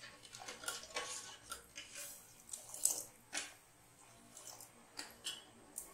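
Steel ladle stirring and scooping hot sugar syrup in a steel pot: irregular scrapes, light clinks and pouring, with the sharpest click about three seconds in.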